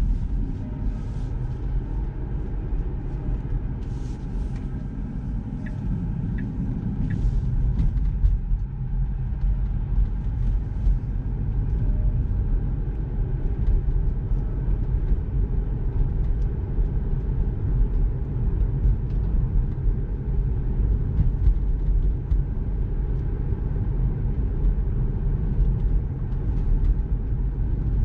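Steady low road and tyre rumble inside the cabin of a moving Tesla Model 3, an electric car with no engine note.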